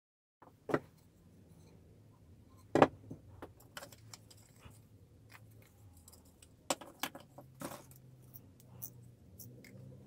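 A billhook blade, wooden handle pieces and a measuring rule are handled on a wooden workbench: a series of sharp knocks and clinks, the loudest about three seconds in, over a faint low hum.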